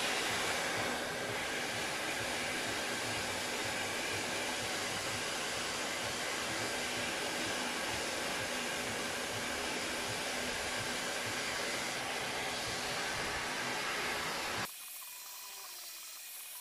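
Handheld hair dryer blowing steadily, heating a headlight's sealant to soften it; the sound cuts off suddenly near the end.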